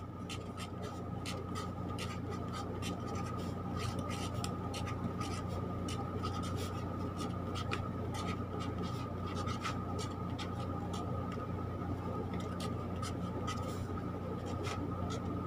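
Black felt-tip pen writing on sketchbook paper: many short scratchy strokes in an uneven rhythm as the letters are drawn, over a steady faint hum.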